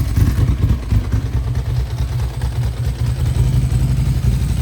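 1999 Bimota DB4's air-cooled Ducati L-twin engine idling steadily through its exhaust, a low, continuous pulsing.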